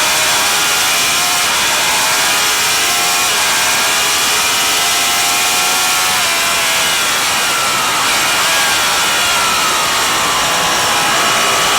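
Racing motorcycle engine running hard at high revs, its pitch climbing and dropping several times as the throttle is opened and closed, with a steady rush of wind noise over it.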